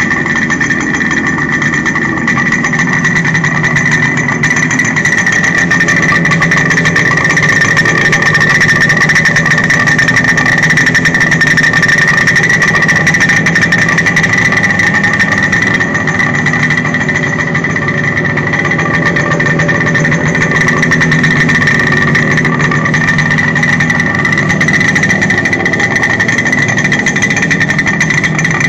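Suzuki GT250 X7's two-stroke parallel-twin engine idling steadily, with a steady high-pitched tone running through it.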